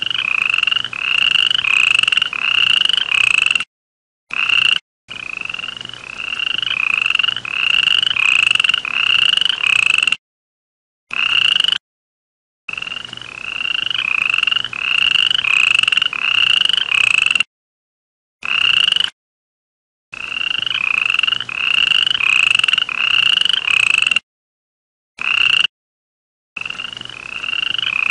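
Frogs calling: runs of short, repeated croaking notes, about two to three a second, broken off abruptly by silences several times.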